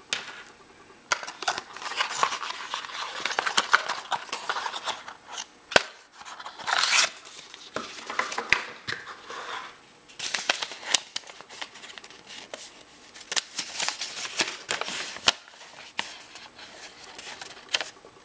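Paper and packaging being handled: irregular rustling and crinkling with sharp clicks as a folded instruction sheet is taken from a small cardboard box and opened out.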